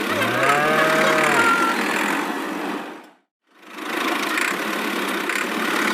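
A small motor running with a steady buzzing noise. It cuts out abruptly about three seconds in and starts again half a second later. A short pitched sound rises and falls over it in the first second and a half.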